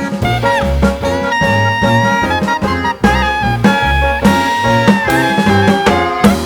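Background music: upbeat swing-style jazz with brass and saxophone over a steady beat.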